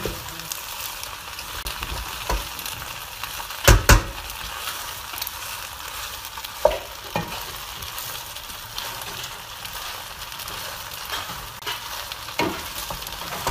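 Macaroni and white cheese sizzling in a pan on the gas hob while a wooden spoon stirs it: a steady frying hiss with a few sharp knocks of the spoon against the pan, the two loudest close together about four seconds in.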